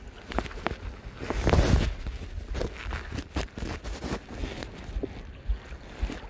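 Wind buffeting the phone's microphone outdoors by the sea, with scattered short clicks and knocks and one louder rush of noise about a second and a half in.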